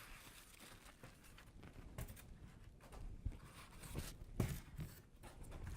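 Rustling and a few light knocks of packaging and a part being handled as it is lifted out of a box.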